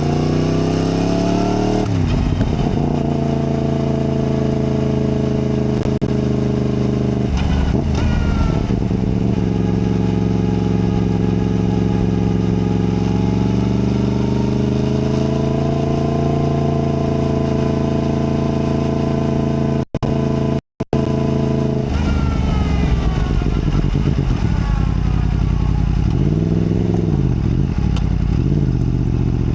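Yamaha MT-10's crossplane inline-four engine pulling through the gears, its pitch climbing, dropping at each shift and climbing again. The sound cuts out briefly about two-thirds through, and near the end the engine pitch swings up and down a few times.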